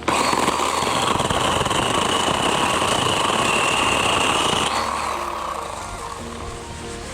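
YARDFORCE 24V cordless handheld chainsaw (LS C25-JP) starting suddenly and running with a steady high electric-motor whine over chain rattle for about four and a half seconds, then spinning down. Background music continues faintly after it.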